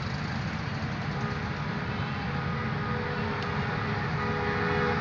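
Passenger train running along the track: a steady rumble and rail noise. A faint, steady two-note tone joins about a second in.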